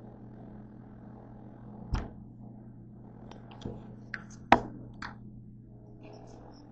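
Handling noise of a camera being gripped and picked up: a series of knocks and taps from fingers on the body near the microphone, the loudest a little past halfway, over a steady low hum.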